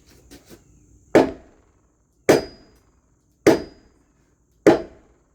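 A sledgehammer striking a wooden porch post four times, evenly about a second apart, tapping it into place under the beam.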